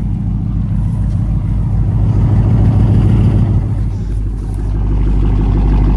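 Chrysler 300C's HEMI V8, fitted with long-tube headers and a loud exhaust, idling with an uneven, lumpy beat. The sound swells a couple of seconds in, then settles to a steadier drone that builds again near the end.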